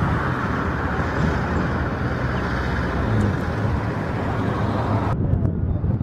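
Steady rumble of jet airliner engines across the airport apron and runway, deep and even with a hiss above it. About five seconds in it turns abruptly duller as the upper hiss drops away.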